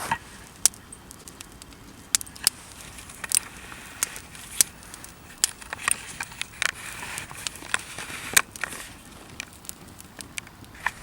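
Campfire of burning wood crackling, with sharp, irregular pops over a soft hiss. The hiss swells between about six and nine seconds in.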